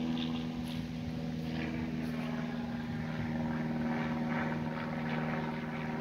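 Single-engine light propeller airplane flying past, which the walker takes for a Cessna 150: a steady engine and propeller drone.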